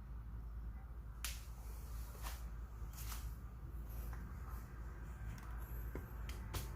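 Scattered sharp clicks and taps, about six of them, over a steady low hum.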